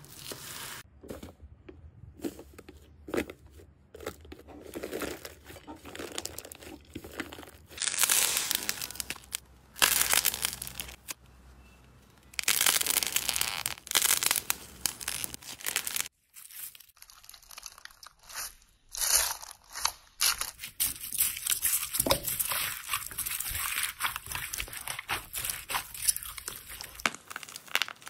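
Slime and soft clay squeezed, pressed and torn apart by hand, giving irregular crackling, crunching and tearing sounds in a run of short bursts with brief pauses.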